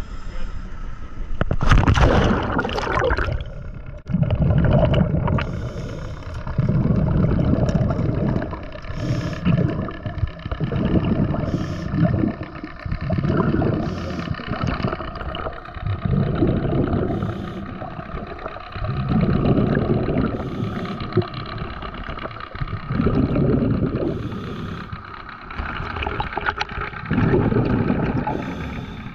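A splash about two seconds in as the diver goes into the sea, then muffled underwater rushing and bubbling that swells and fades every second or two.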